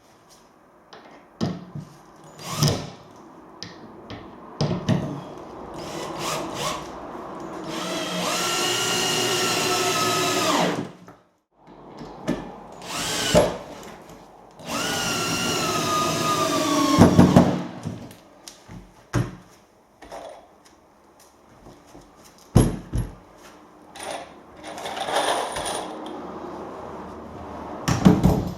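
Power drill running in two bursts of about three seconds each, its whine dropping in pitch toward the end of each as it comes under load, with sharp knocks and clatter between.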